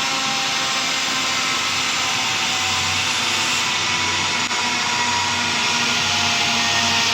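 A car engine running steadily, with a loud, even rushing noise and a faint whine.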